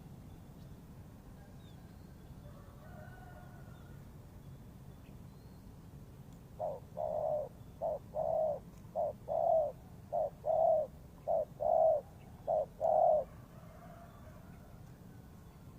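Spotted dove cooing: a run of about six short-then-long coo pairs, starting about halfway in and lasting some six seconds. Faint chirps of small birds come before the coos.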